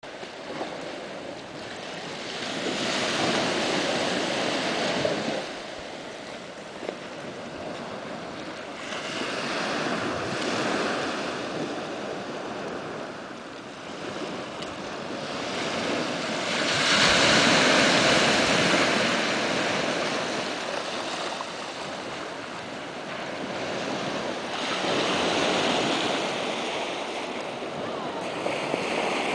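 Sea surf washing onto a small beach, mixed with wind, in surges that swell and fade every several seconds. The loudest surge comes a little past the middle.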